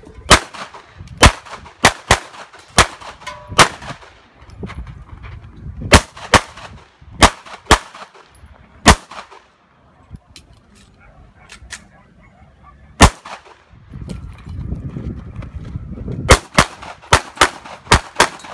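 Caracal C 9mm pistol firing in pairs and short strings: roughly eighteen sharp shots in all, with brief pauses between strings and a longer lull a little past the middle. A low rumbling noise comes just before the last quick string.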